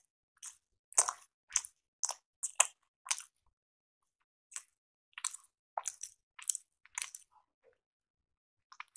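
Chewing a mouthful of rice appe (paniyaram): short, sharp mouth sounds about twice a second, with a pause of about a second near the middle and a last one near the end.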